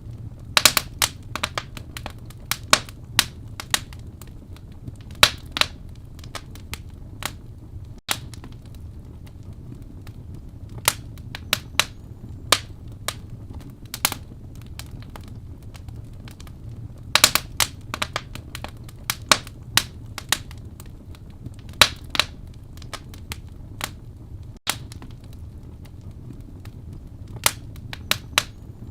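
Wood fire burning in a fireplace: a steady low rumble of flame with irregular sharp crackles and pops from the burning logs, sometimes in quick clusters.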